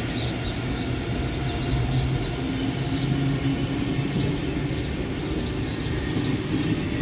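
Swiss SBB passenger train rolling past along a station platform: a steady rumble of wheels on rails, with faint light clicks over it.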